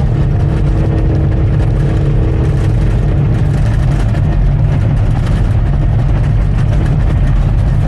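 Bulldozer's diesel engine running steadily as the machine works, with a faint steady whine over it for the first few seconds.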